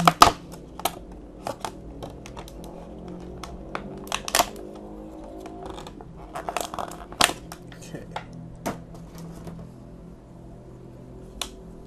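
Plastic toy packaging being handled and pulled apart: scattered crackles, crinkles and sharp clicks, a few louder snaps among them. Quiet background music plays under it.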